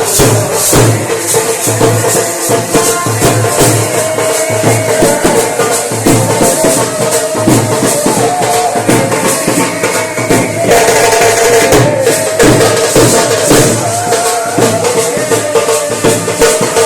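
Indian wedding band (band baaja) playing loud music: a held, wavering melody line over a steady, driving drum beat.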